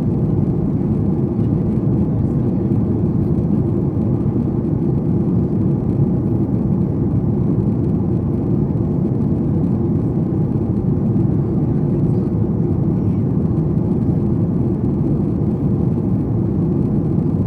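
Steady, even cabin noise of a Boeing 737 MAX 8 in descent: its CFM LEAP-1B turbofan engines and the airflow along the fuselage, heard from inside the passenger cabin as a constant low rumble.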